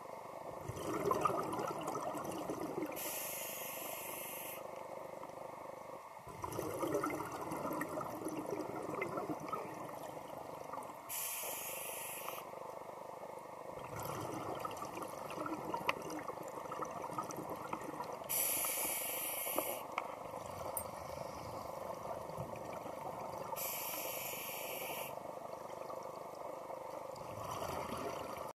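Scuba diver breathing through a regulator underwater: four hissing inhalations, each about a second and a half long, with a rougher bubbling noise of exhalation swelling between them.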